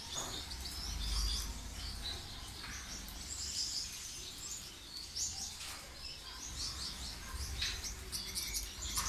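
A flock of Gouldian finches calling with many short, high chirps, overlapping and irregular, while feeding at a seed tray, over a low rumble.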